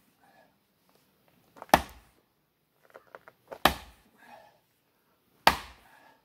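Splitting maul striking the end of a dry black locust round: three sharp blows about two seconds apart. The maul bounces off without sticking in, the sign of very hard, dense wood.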